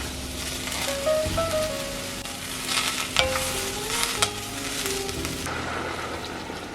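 Food sizzling as it fries in a pan, with the sharp clicks and scrapes of a utensil stirring it.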